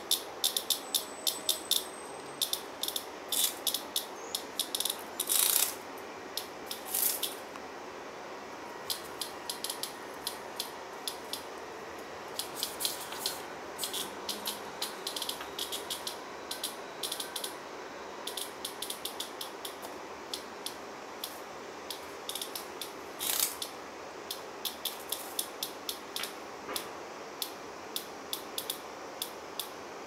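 A cicada being batted and mouthed by cats on a wooden floor: irregular dry clicking and rattling, with a few short harsh buzzes about five, seven and twenty-three seconds in.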